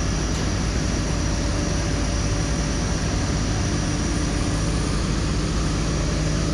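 Steady drone of airliner ramp machinery next to a parked Airbus A330-900neo: a constant rush with a few steady hum tones, unchanging throughout.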